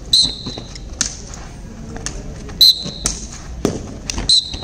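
Sharp clacks of sticks striking in a gatka single-stick bout, several over a few seconds. Three of the strikes are each followed by a brief high-pitched ringing tone.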